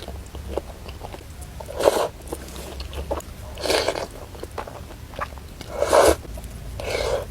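Close-miked eating of spicy noodles: chewing, with four short, loud mouth sounds spaced about two seconds apart and softer smacks in between.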